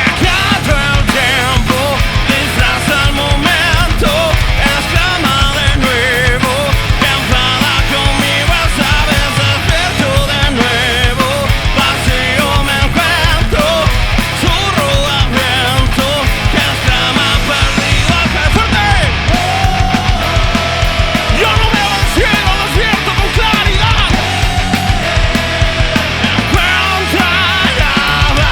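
Rock band playing live: steady drums with electric guitars carrying a wavering melody.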